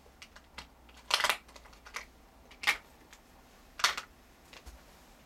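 Cloth rustling and brushing from a grey knit sweater moving right against the camera: three louder short scrapes, about a second or so apart, among a few small clicks.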